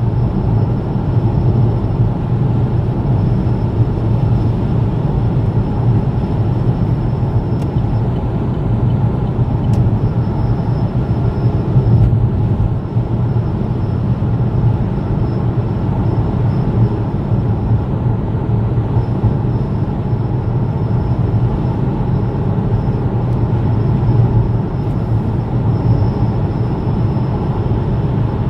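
Vauxhall Mokka on the move: steady road and running noise with a low drone, and a faint high whine above it that drops out now and then. The strange noise is one the driver thinks comes from the back wheels, though he is not sure.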